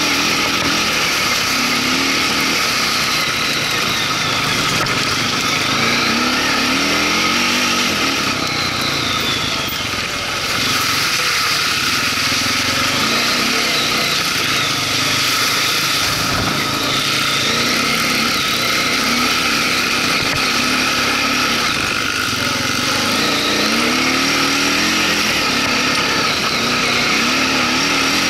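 Quad (ATV) engine running under way, its pitch rising and falling over and over as the throttle opens and closes.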